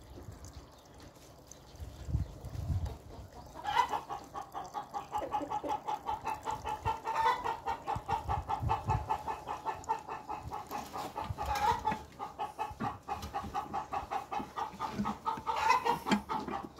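Hen cackling: a rapid run of clucks starting about four seconds in, with a louder drawn-out call every few seconds.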